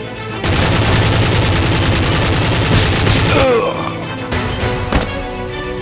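Rapid machine-gun fire lasting about three seconds, over background music, with one more sharp shot near the end.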